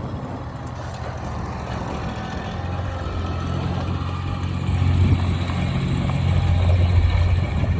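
Engine of a Kubota front-mount riding mower running steadily, growing louder from about two and a half seconds in.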